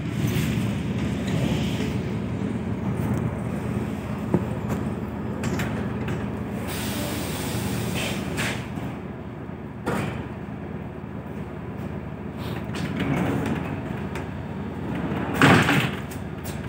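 ED4M electric train heard from inside the carriage: a steady low rumble, with a short hiss about seven seconds in, sharp knocks near four and ten seconds, and a louder clatter about a second before the end.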